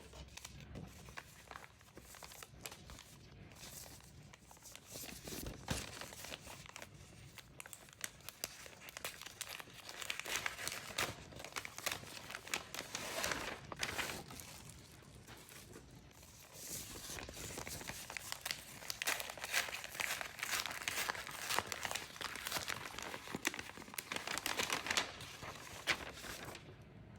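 Plastic packaging crinkling and rustling as it is handled and opened, with bursts of crackling from about ten seconds in and again from about seventeen seconds in.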